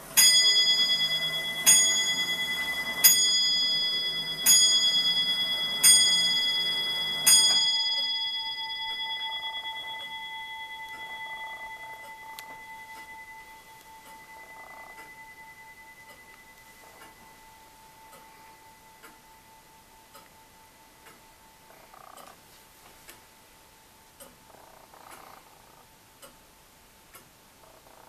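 A 1690 William Clement 30-hour longcase clock with a lantern movement strikes its bell six times, about a second and a half apart. The last stroke rings on and fades over several seconds, and then the clock ticks quietly about once a second.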